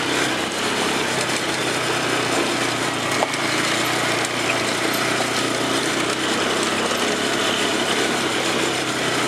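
ATV engine running steadily as the quad rides along a dirt trail, under an even rush of noise, with one sharp click about three seconds in.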